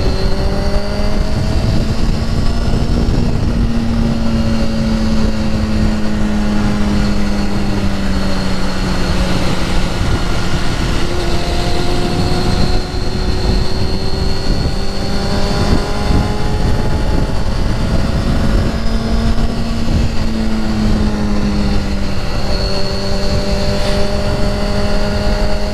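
Motorcycle engine running at a steady cruise, its pitch rising and easing slowly a few times, over a constant rush of riding wind.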